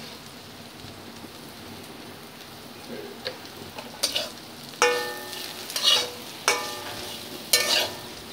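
Potato strips frying in a steel kadai with a low, steady sizzle. From about four seconds in, a flat metal spatula stirs them, scraping and knocking against the pan about once a second, five times, and each stroke makes the steel ring briefly.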